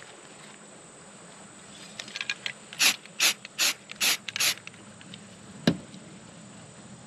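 Aerosol spray paint can sprayed through a stencil in five short, even bursts, each a brief hiss. A single sharp click follows a second later.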